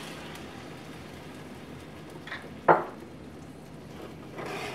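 Ground beef and vegetables sizzling low in a cast-iron skillet as beef bone broth is poured in, with a single sharp clink about two and a half seconds in. A spatula starts scraping the pan near the end.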